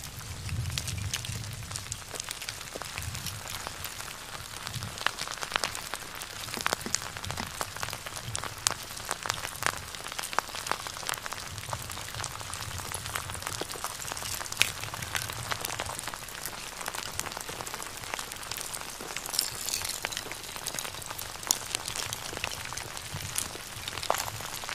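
Crackling, sizzling fire sound effect: a steady hiss thick with small crackles, sharper cracks scattered through it, and a low rumble that swells and fades.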